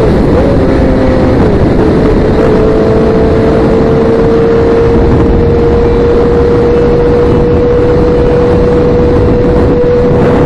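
Sport motorcycle engine at steady cruising speed under heavy wind rush on the microphone; the engine note dips briefly about a second and a half in, then holds steady.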